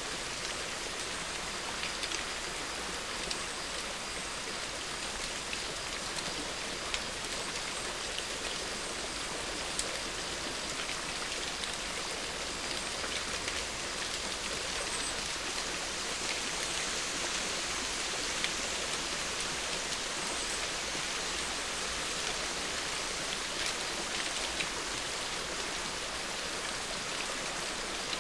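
Steady rain-like hiss with scattered faint ticks.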